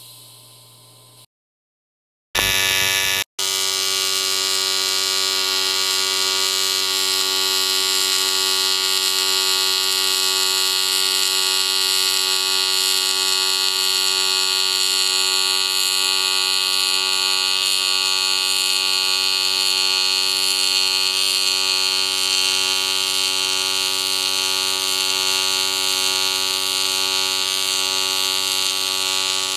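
AC TIG welding arc on aluminum, with the machine's adjustable amplitude at 30%: a steady buzz made of many even tones. The arc strikes about two and a half seconds in, drops out for an instant just after, then holds steady.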